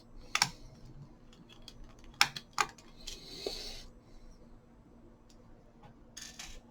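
Sharp clicks and taps of a screwdriver and small parts on an open laptop's chassis, while the cooling fan's two Phillips screws are being removed. A few separate clicks, the loudest about two seconds in, and a soft rustle of handling a little after three seconds.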